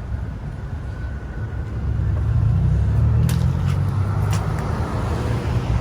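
A steady low rumble that grows louder about two seconds in, with a few sharp clicks near the middle.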